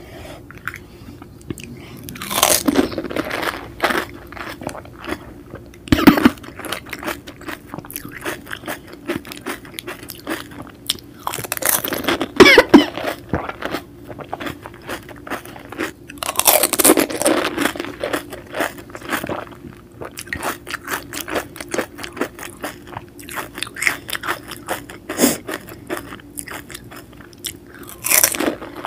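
Close-miked crunching and wet chewing of pani puri: hollow fried puris filled with spiced water cracking in the mouth. There are loud bursts of crunch every few seconds, with quieter crackly chewing in between.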